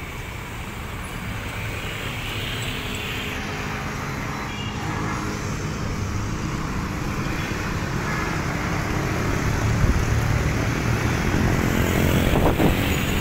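Road traffic: cars and motorcycles driving past on a street, a steady engine and tyre rumble that grows louder toward the end as vehicles come closer.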